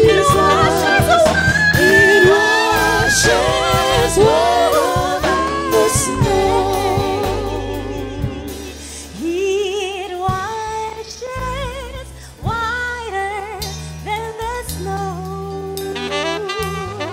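Gospel worship song performed live by a small vocal group, voices singing with vibrato over keyboard, drums and saxophone. The music eases off somewhat in the second half.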